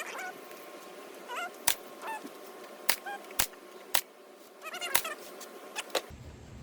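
Nails being driven to fasten a cedar birdhouse roof: about six sharp, irregularly spaced strikes. Short honking bird calls sound between them.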